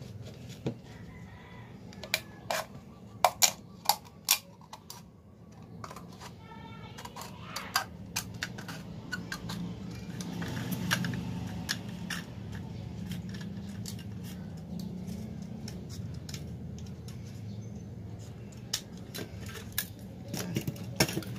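Scissors snipping through a thin empty plastic Yakult bottle: irregular sharp clicks and crackles of the plastic being cut and handled, the loudest cluster a few seconds in.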